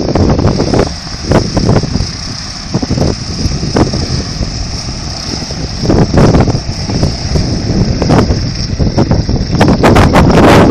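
Storch light aircraft's propeller engine running as it taxis closer, growing louder near the end, with wind gusts buffeting the microphone.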